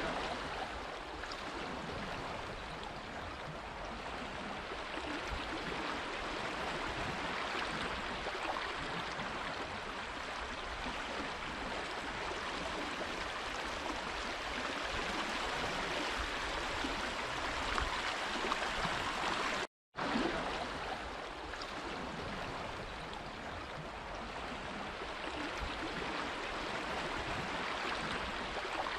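Running water flowing and gurgling steadily. It cuts out completely for a split second about two-thirds of the way in.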